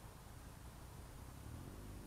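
Faint, distant engine of a 1994 Triumph Sprint 900 inline-triple with a baffle-less Delkevic stubby exhaust, approaching and growing a little louder from about one and a half seconds in, over a low rumble.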